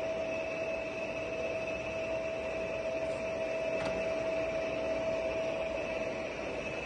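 Giana heavy-duty lathe running under power cross feed: a steady mechanical hum from the gearing with a constant whine. There is a faint click about four seconds in.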